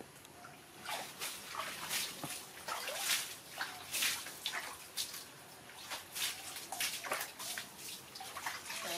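Water splashing and sloshing in a plastic tub as a baby monkey moves about in its bath, in a run of short splashes starting about a second in. A few short monkey squeaks come near the end.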